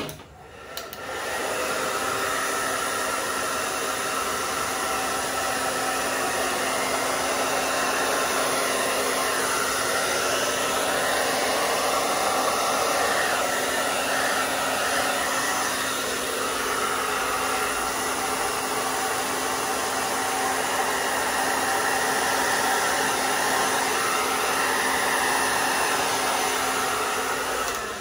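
Hair dryer on high fan with cool air, blowing wet acrylic paint outward into a bloom. It switches on with a click, comes up to speed over about the first second, then runs steadily with a low hum under the rush of air.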